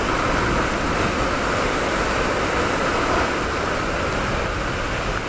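Steady rushing storm-wind noise, even and unbroken, with no gusts or separate events.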